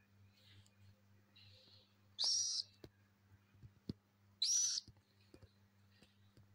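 Young cockatiel giving two loud, short, shrill calls about two seconds apart, with a few faint clicks in between.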